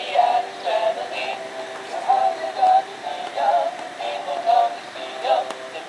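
Animated Halloween black cat plush toy playing its built-in song through a small, tinny speaker while it wiggles: a sung melody with the notes changing every fraction of a second.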